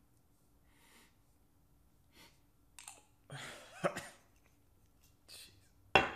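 A man's breaths and a short wordless vocal sound with a falling pitch. Small clicks as a cap is twisted back onto a clam juice bottle, then a sharp knock near the end as the bottle is set down on the table.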